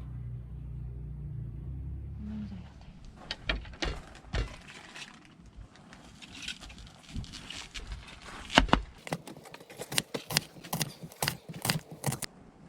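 A low steady rumble that cuts off about two and a half seconds in, followed by irregular sharp clicks, knocks and rustling of utensils and packaging being handled during food preparation, with one louder knock past the middle.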